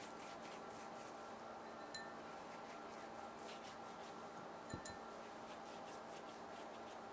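Faint soft strokes of a pastry brush dabbing beaten egg onto puff pastry, over a steady low hum. Two small high pings ring out, at about two seconds and just before five seconds, the second with a light tap.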